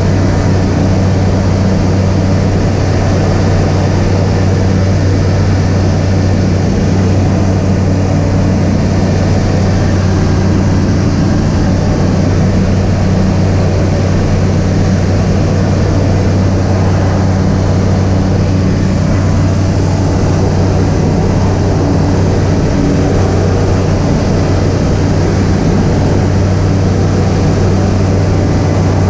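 Aeroprakt A-22 ultralight's engine and propeller droning steadily in cruise flight, a loud, even hum with no change in pitch.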